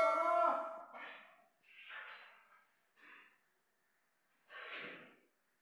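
A bell-like ding from the subscribe-button sound effect rings out and fades during the first second. It is followed by four soft, breathy puffs spaced about a second apart.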